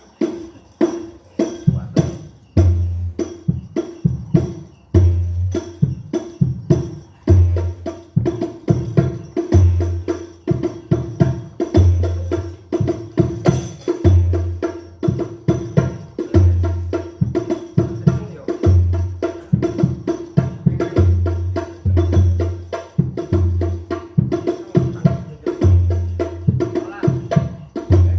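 Hadrah (terbangan) frame-drum percussion playing a steady rhythm: quick sharp slaps and jingles over deep bass drum strokes about once a second.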